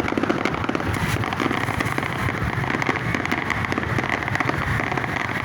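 Fireworks crackling densely and without a break: a rapid, continuous spatter of small pops and crackles, much like heavy rain.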